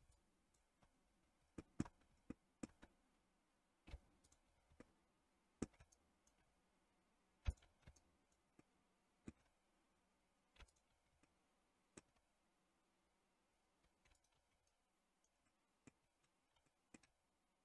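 Computer mouse clicking: single sharp clicks at irregular intervals, a few close together in the first seconds and then further apart, over near silence.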